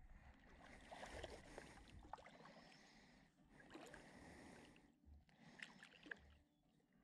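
Faint, gentle water sounds of bare feet moving in a shallow rock pool: soft swishing and lapping that swells and fades twice, with a few small splashes.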